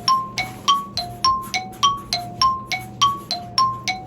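Background music: a light mallet-percussion loop plinking back and forth between two notes, about three notes a second.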